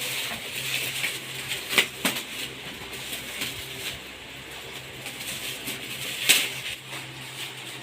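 Gift wrapping being handled and pulled open: a steady rustling and crinkling, with a few sharp clicks and snaps, the loudest a little after a second in and again about six seconds in.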